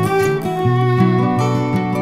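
Background instrumental music led by guitar, moving through sustained notes.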